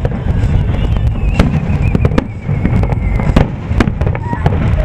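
Aerial fireworks shells bursting in quick succession, sharp cracks and booms over a continuous low rumble.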